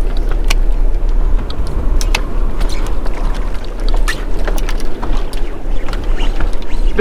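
Wind rumbling on the microphone over water noise around a small boat, with scattered sharp clicks and knocks throughout.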